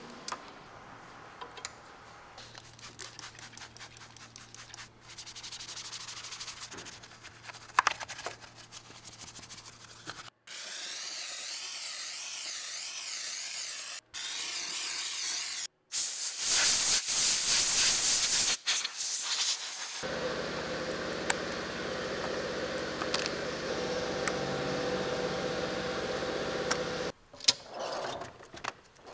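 A run of short workshop sounds: a vinyl fender cover rustling as it is laid over the fender, then a loud hiss of steam and spray over a foam-covered engine air-filter box, a steady pitched hum for several seconds, and near the end a toolbox drawer sliding open.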